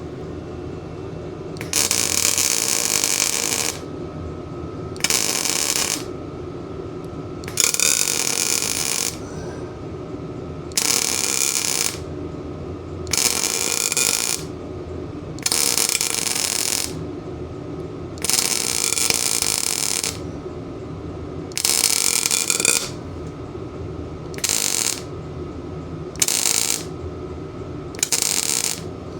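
Best Arc MIG 145 MIG welder laying a run of short welds, each burst of arc crackle one to two seconds long, about eleven in all, to fill a quarter-inch gap. A steady hum sounds between the bursts.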